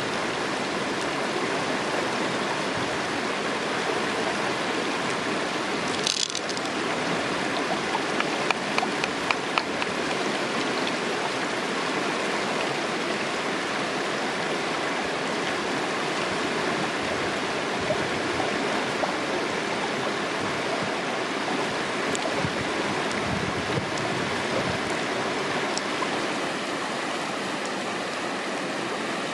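Shallow stream running steadily over rocks, an even rushing of water. A few sharp clicks and taps stand out about a third of the way in.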